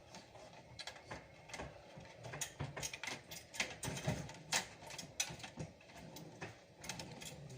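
Irregular clicks and light clatter of small parts and tools being handled while working inside a desktop computer during a motherboard replacement.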